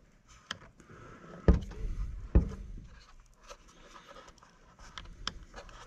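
Motor wire bullet connectors being pushed into an RC speed controller: small clicks and rustling of wires, with two dull thumps about a second apart, near the start.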